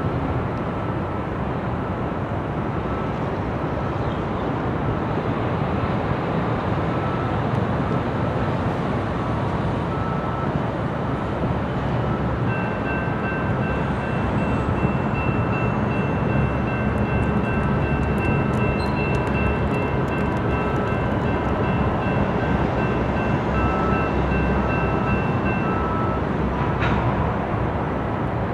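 Diesel switcher locomotives idling in a rail yard: a low steady engine drone, with faint steady whines that come in about halfway and stop near the end.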